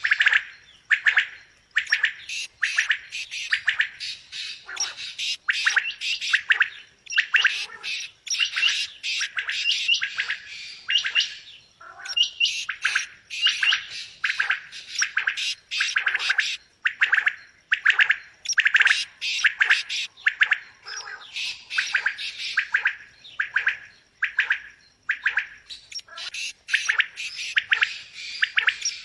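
Quail calling over and over: runs of short, sharp notes in quick groups, separated by brief pauses.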